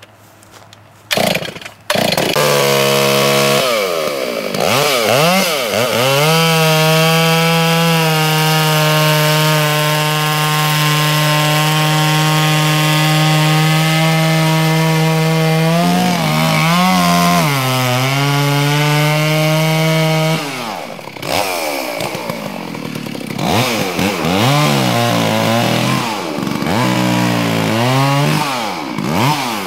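Chainsaw throttled up about two seconds in and held at steady high revs while cutting into a dead tree, its pitch dipping briefly around the middle. For the last third it revs up and down in shorter bursts.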